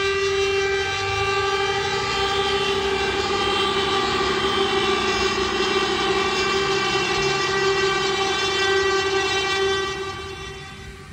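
A loud, steady horn-like tone held on one pitch, fading away over the last second or so.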